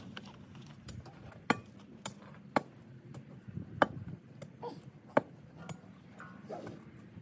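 Sharp, short clicks or knocks at irregular intervals, five clearly louder than the rest, over a low background rumble.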